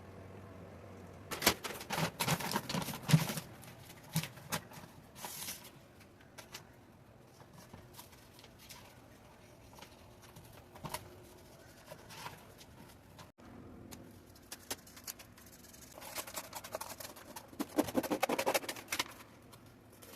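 Irregular hand-work noises: scraping, rustling and light clicks and knocks, in a dense burst about two seconds in, scattered ticks in the middle, and another busy stretch near the end.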